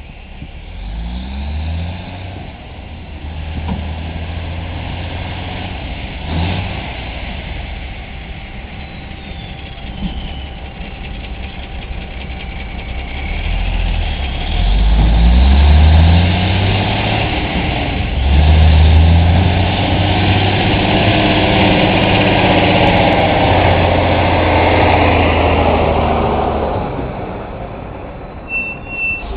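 Diesel dump truck engine revving up through its gears as it pulls away. It grows louder about halfway through as it comes close, stays loud for about ten seconds, then eases off near the end.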